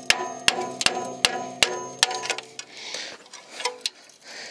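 Hammer striking the rusted parking brake shoes and hardware on an LBZ Duramax's rear brake backing plate to knock them loose. About seven sharp metallic strikes, roughly three a second, each leaving a ringing tone. The strikes stop about halfway through.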